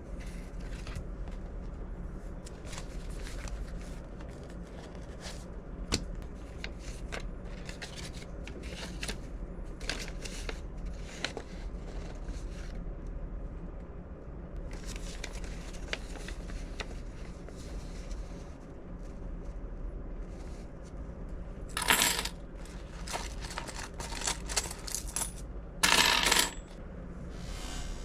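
Coins clinking as they are handled, a run of small scattered clicks with two louder jingles near the end, over a low steady hum.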